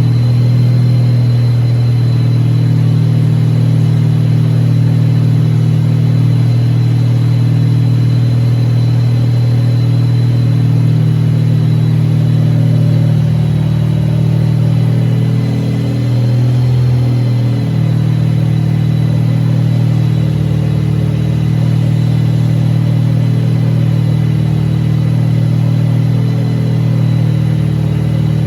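Wankel rotary engine running at a steady speed, with a thin high whine over the low hum; the note shifts briefly about halfway through.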